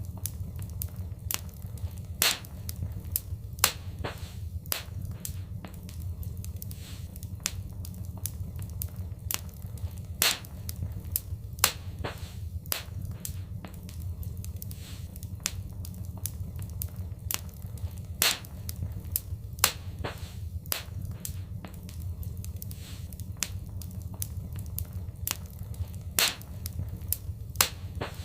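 Wood fire in a fireplace crackling, with irregular sharp pops over a steady low rumble; a handful of the pops stand out well above the rest.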